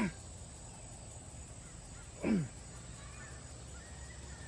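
A man gagging and hacking in his throat twice, short sounds that drop sharply in pitch, after a bug has flown into his throat. Faint bird chirps come in near the end.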